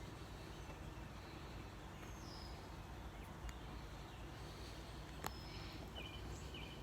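Faint outdoor background with a steady low rumble, a few short distant bird chirps, and one sharp click a little after five seconds.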